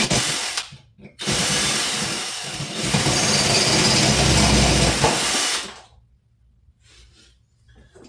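Power drill drilling out a rivet on a snowmobile hood latch strap: a short run ending about half a second in, then a longer run of about four and a half seconds that stops near the six-second mark.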